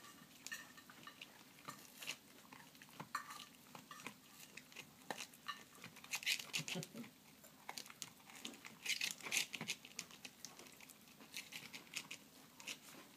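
A puggle gnawing on a big rawhide bone: faint, irregular chewing clicks and crunches, busiest about six and nine seconds in.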